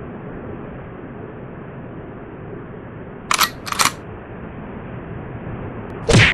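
Steady outdoor background noise, broken about three seconds in by two quick camera-shutter clicks half a second apart. Near the end comes the first of a run of loud whack sound effects, marking the metal jig being slammed.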